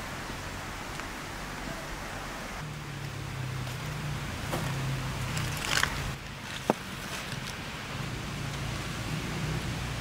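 Pot of rice water at a rolling boil, a steady hiss, with a low steady hum joining about three seconds in. Near six seconds comes a brief rustling crash as lettuce leaves are dropped into a metal basin of vegetables.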